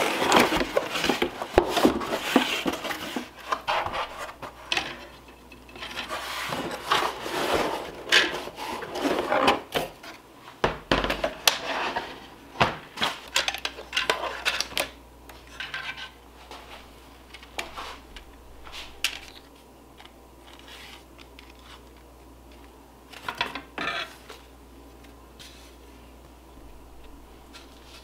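Unboxing handling sounds: a cardboard box opened and slid about, with rustling and many light knocks, then plastic and metal embroidery-hoop parts clicking and clattering as they are taken out and handled. The activity is busiest in the first half and thins to occasional light clicks later.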